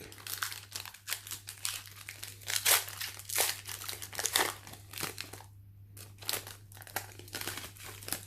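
Foil wrapper of a Pokémon booster pack being torn open and crinkled in the hands: a run of crisp, irregular crackles.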